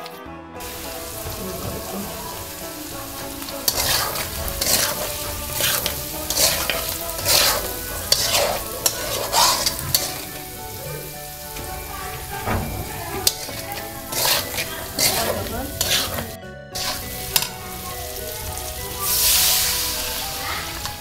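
Spiced diced potatoes sizzling in hot oil in a metal karai while a metal spatula stirs them, with repeated scrapes against the pan. The sizzling swells near the end.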